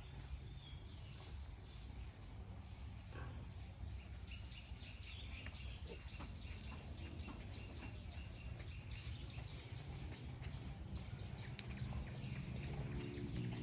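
Outdoor background noise with a steady low rumble, scattered small clicks and knocks, and faint bird chirps in the middle.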